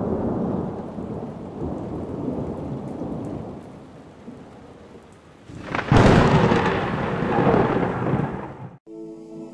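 Thunderstorm sound effect: rain with rolling thunder that slowly fades. About six seconds in comes a sudden loud thunderclap, which rumbles for a few seconds and cuts off abruptly. Music begins near the end.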